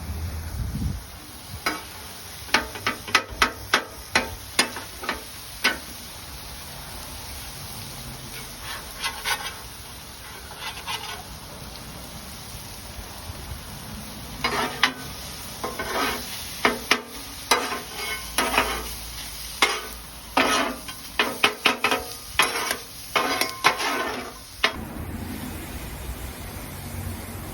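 Metal scraping and clanking on a cast iron grill grate in quick bursts of short strokes, several groups of them, stopping about three seconds before the end.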